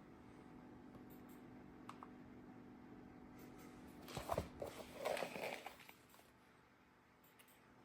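Brief handling noise: a cluster of small taps, clicks and rustles about four seconds in, lasting around two seconds, over a faint steady hum.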